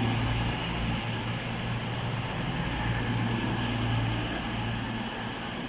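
Pair of Class 220 Voyager diesel-electric trains moving slowly along the platform, their underfloor diesel engines giving a steady low hum.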